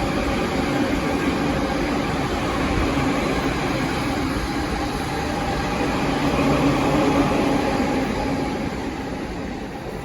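Train running at a station platform, a steady rumble with a faint held hum. It swells a little about seven seconds in, then fades toward the end.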